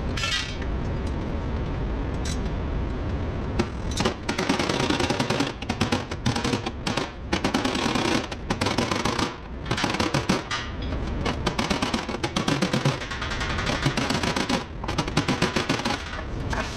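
A workshop power tool hammering in repeated short bursts of rapid impacts, starting about four seconds in.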